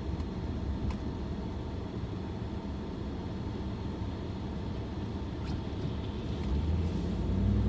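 Steady low rumble of a car's engine and tyres heard from inside the cabin while driving, growing slightly louder near the end.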